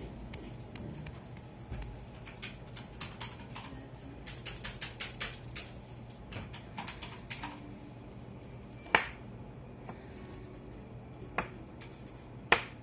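Small hard honing stones being handled, clicking and tapping: a scatter of light clicks, then three sharp clicks spaced about a second and a half to two and a half seconds apart near the end, over a faint steady low hum.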